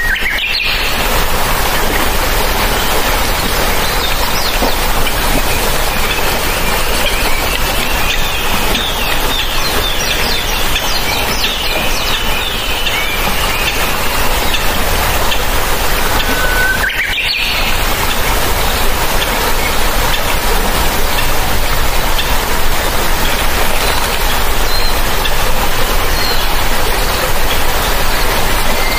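Steady rushing of a shallow rocky stream, with birds chirping over it.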